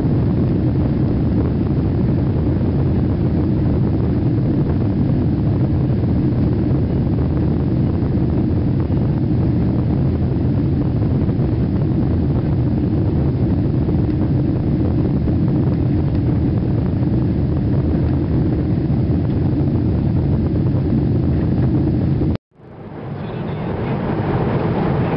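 Inside the cabin of a Boeing 777-200ER at takeoff: the jet engines at takeoff power and the rush of air as the airliner lifts off and climbs, a loud steady rumble. A little before the end it cuts out suddenly and fades back in as steady cabin noise in flight.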